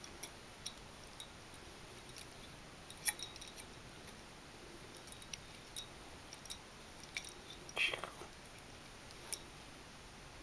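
Faint, scattered clicks and scratches of a small comb being worked through a Persian kitten's fluffy belly fur, with a brief soft murmur about eight seconds in.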